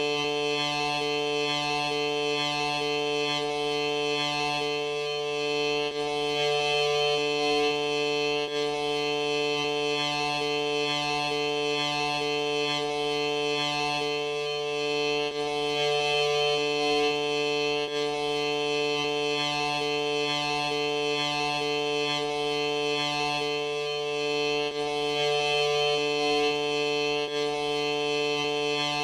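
A sneeze slowed and stretched into a steady droning chord of held tones, from a low hum up to a high ringing band; one middle tone drops out briefly about every nine seconds.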